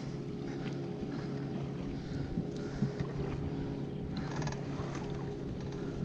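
Steady low motor hum aboard a bass boat, running evenly, with a few faint short rustles of handling over it.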